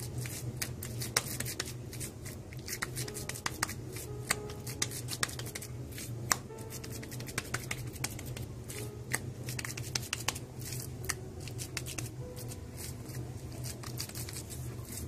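Hands patting and pressing a chapli kebab patty of spiced minced meat flat between the palms, with many sharp, irregular crackles and pats over a low steady hum.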